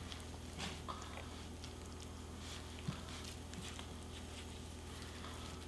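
Faint wet squishing and rustling of gloved hands rolling pork belly up in a leaf of aged kimchi, with a small tick about three seconds in, over a steady low hum.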